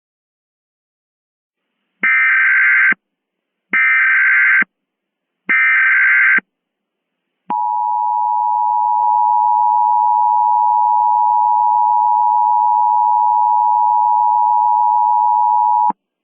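Emergency Alert System tones: three short bursts of the SAME digital header, a warbling data screech about a second long each, then the steady two-tone EAS attention signal, held for about eight seconds before cutting off sharply. The header carries the alert's coded data, and the attention tone announces an emergency message.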